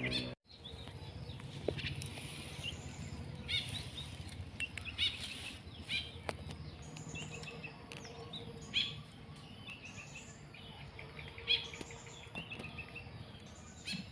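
Small birds chirping, short high calls repeating about once a second, over steady low background noise.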